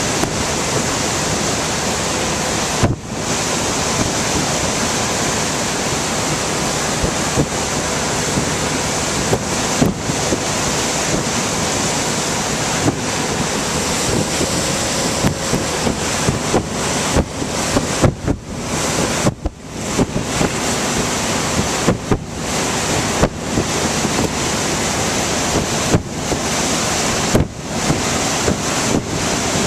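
Wind buffeting the microphone on a moving motorboat, over the steady rush of the boat's wake churning behind it. The noise is continuous and loud, with brief dropouts now and then.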